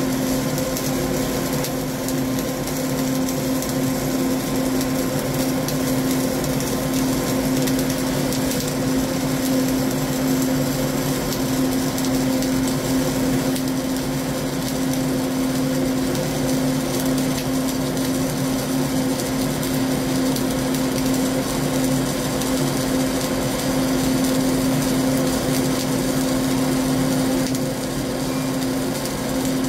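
Flux-cored arc welding with CO2 shielding gas on a vertical joint: the arc crackles steadily without a break, over a steady hum.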